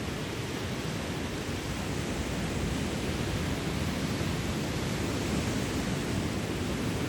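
Steady rushing noise, even across all pitches and heaviest in the low end, with no rises, breaks or distinct events.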